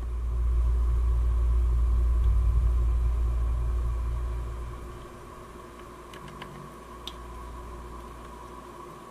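Low rumble of handling noise as the camera is picked up and moved, easing off after about five seconds, over a faint steady whine; a few small plastic clicks come near the end as a toy buckle is turned in the hands.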